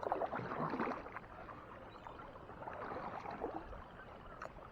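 Kayak paddle strokes in the water: faint, soft splashing and dripping, in a spell during the first second and another around three seconds in.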